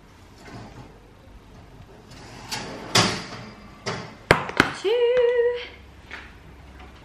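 Metal cake tins being lifted out of an oven and set down: a few sharp clanks and knocks, two of them close together about four seconds in. A short hummed vocal sound follows just after.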